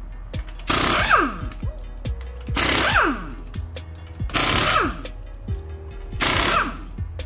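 Pneumatic impact wrench spinning off a wheel's lug nuts in four short bursts about two seconds apart, each with a pitch that falls as the nut spins free.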